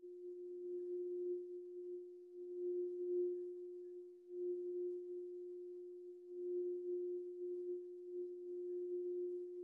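Crystal singing bowl sung by circling a mallet around its rim: one steady hum that swells and fades every second or two as the mallet goes round.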